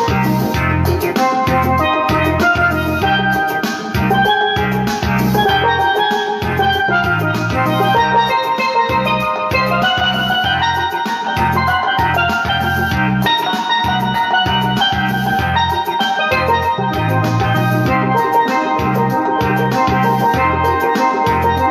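Steelpan played with two sticks: a continuous melody of quick, ringing notes, over an accompaniment with a steady drum beat and bass.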